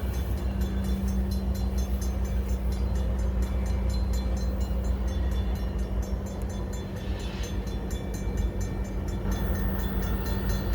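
Diesel locomotive passing close by, its engine running with a steady low drone that eases off about six seconds in as it goes past.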